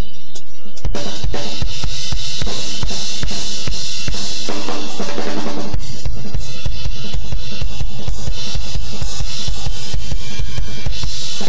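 Acoustic drum kit being played: rapid strokes on snare, toms and bass drum with cymbals ringing over them, and a thicker wash of cymbals around five seconds in.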